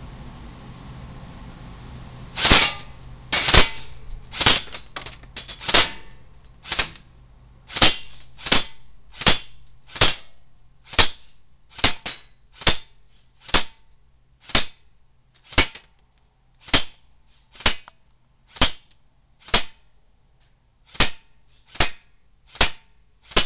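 Echo1 MP5-A5J airsoft electric gun firing single shots, a sharp crack each. They start about two seconds in, come a little quicker and uneven at first, then settle to about one a second.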